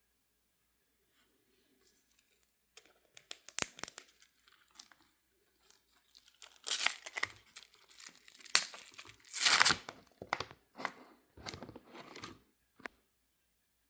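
Plastic sleeve pages of an old sports-card binder being handled and pulled apart, crinkling and tearing in irregular bursts, loudest around the middle and again a few seconds later.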